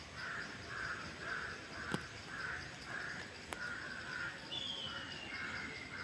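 A crow cawing over and over, about two caws a second. Near the end a thin, falling whistle from another bird joins in. Two sharp clicks come in the middle.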